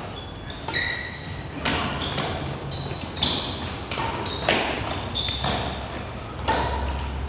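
Badminton rackets striking a shuttlecock in a rally, a sharp hit about once a second, each echoing in a large hall.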